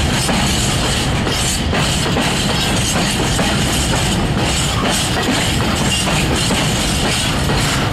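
A freight train of empty open-top coal wagons rolling slowly past close by: a steady rumble with wheels clattering and knocking over the rail joints and the empty bodies rattling.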